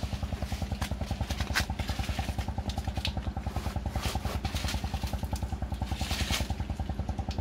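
Small engine running steadily at idle, a fast even putter of about ten beats a second, with a few faint clicks over it.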